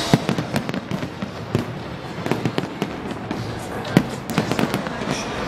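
Fireworks display: a dense, continuous run of bangs and crackles from aerial shells bursting overhead, with sharp louder bangs just after the start and about four seconds in.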